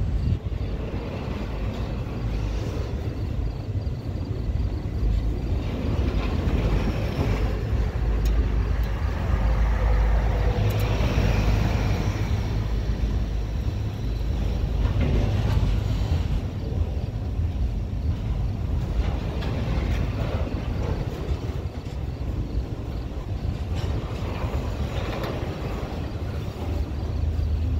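Double-stack container freight train rolling steadily past: a continuous low rumble of steel wheels on rail from the well cars.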